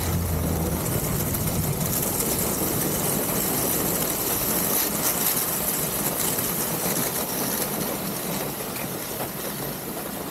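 Rushing wind on the sled-mounted camera microphone and the ski runners hissing over snow as the rocket sled coasts with its motor not firing. It slowly fades as the sled loses speed.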